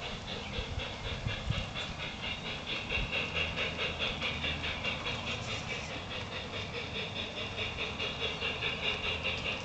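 LGB G-scale model steam locomotives' sound units chuffing: a steady, rhythmic hiss several beats a second, with a low running rumble underneath.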